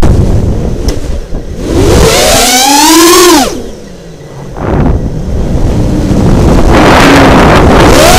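FPV racing quadcopter's electric motors whining, rising and falling in pitch with the throttle. The pitch climbs and drops about three seconds in, the sound nearly cuts out around four seconds in as the throttle is chopped for a flip, then it returns with a rushing noise and climbs again as the drone dives.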